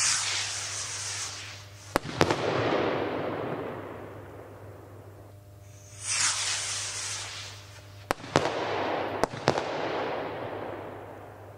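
Consumer fireworks battery firing two shots. Each goes up with a hissing rush and bursts about two seconds later in sharp bangs that die away in a long rumbling echo: two bangs for the first, four in two quick pairs for the second.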